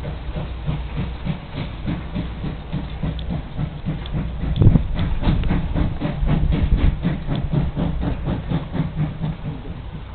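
Exhaust of JNR Class 8620 steam locomotive 58654 chuffing in a regular beat of about four a second. The beats grow heavier about halfway through, with one loud blast, as it works hard and blows thick smoke.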